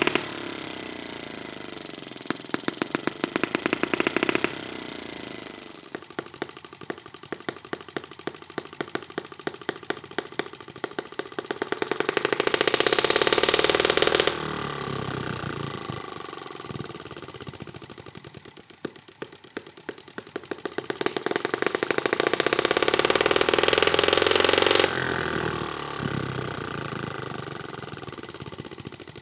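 2.6cc single-cylinder four-stroke model gasoline engine running through a small stainless steel muffler, a rapid string of exhaust pops. Twice its speed climbs to a loud, fast run and then drops back suddenly, about halfway through and again near the end.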